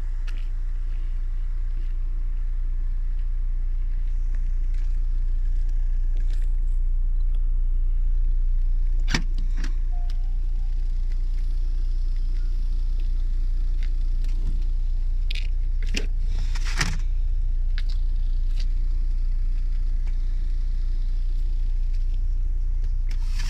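Opel Signum's 1.8-litre four-cylinder petrol engine idling steadily with a low hum. A few sharp knocks and clicks come from the tailgate and boot being handled, the loudest about nine seconds in and again around sixteen to seventeen seconds in.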